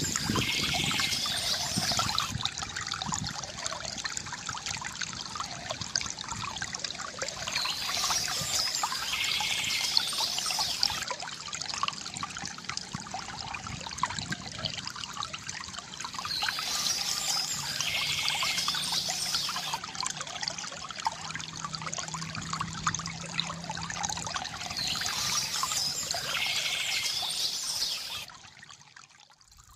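River water gurgling and trickling steadily, with birds chirping in a short burst about every nine seconds. The water sound drops away sharply near the end.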